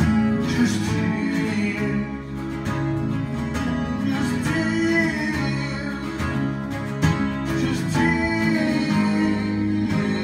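Music with a strummed guitar playing sustained chords.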